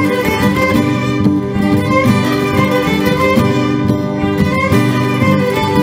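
Instrumental music playing steadily, with sustained pitched notes.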